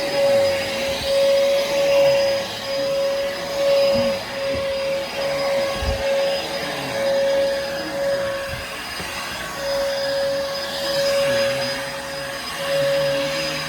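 Bissell Helix vacuum cleaner running, a steady motor whine over a rushing hiss of air. The loudness swells and dips every second or two.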